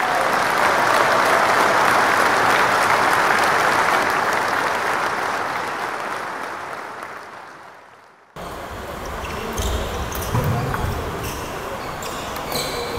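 Arena crowd applauding and cheering, loud and even, fading out over about eight seconds. Then, after a sudden cut, indoor badminton-court sounds: sharp hits and short shoe squeaks on the wooden floor.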